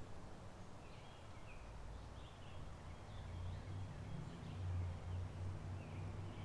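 Small songbirds chirping in short, scattered high notes, over a low steady hum that swells about halfway through.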